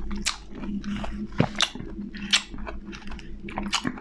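A person chewing and biting food, with irregular crisp crunches and wet mouth clicks.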